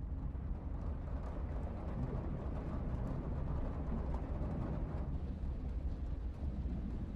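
A stomach growl: a continuous low rumble, heaviest in the deep bass, holding steady without a break.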